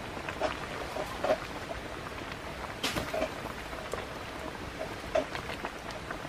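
Wood fire crackling under a pot of soup at the boil: a steady hiss of bubbling and burning with many small scattered pops, and one sharper click about three seconds in.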